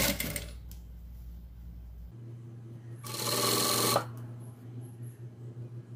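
Sewing machine stitching satin bias binding onto tulle: one short, loud run of stitching about three seconds in, lasting about a second. A steady low hum runs in between.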